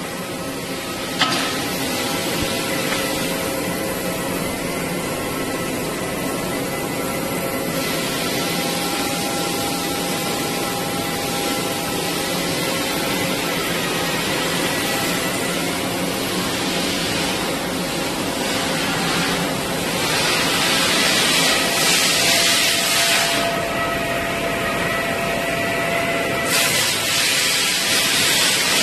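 Steady workshop machinery noise: a continuous hiss with faint steady hums underneath, and a single sharp click about a second in. The hiss grows louder and brighter for a few seconds about two-thirds of the way through and again near the end.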